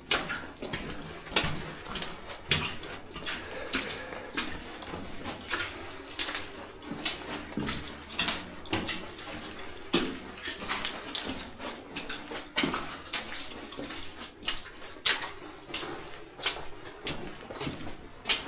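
Footsteps crunching and clattering over loose slate and rock underfoot, an irregular series of knocks and scrapes.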